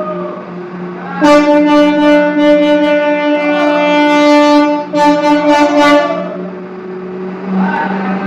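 A garbage truck's horn gives one long, loud, steady blast of about four seconds, then a second shorter blast of about a second, over the truck's running diesel engine.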